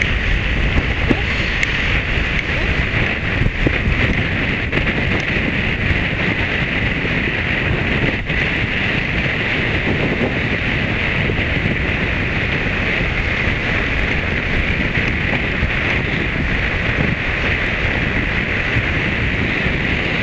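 Wind buffeting the camera microphone: a steady rushing noise with a low rumble, unbroken throughout.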